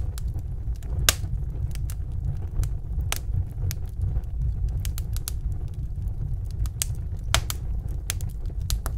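Fire sound effect: a steady low roar of flames with irregular crackles and pops.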